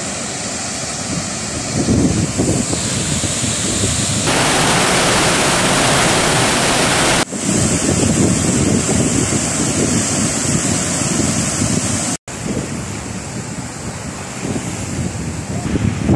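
Water rushing out of the open spillway gates of a large dam and plunging into the river below, a loud, continuous rush. It breaks off abruptly about four and seven seconds in, and drops out briefly near twelve seconds.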